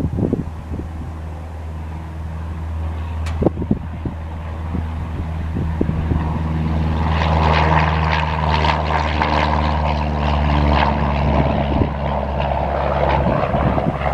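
Cessna 172R Skyhawk's four-cylinder Lycoming engine and propeller at full power on the take-off run, a steady engine drone that grows louder, with the propeller's rasping noise building strongly from about halfway in as the plane passes.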